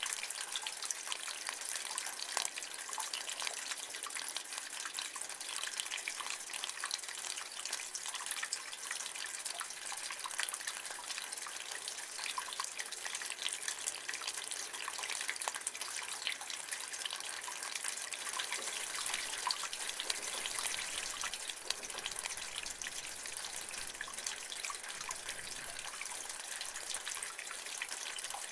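Rainwater running and dripping from a roof gutter: a steady trickle and splash with many small drips.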